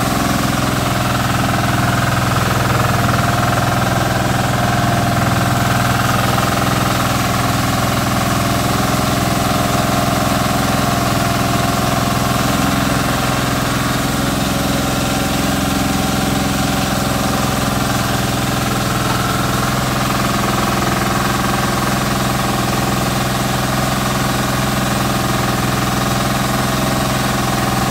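Small stationary engine running steadily, belt-driving a rice milling machine as rice is fed through it.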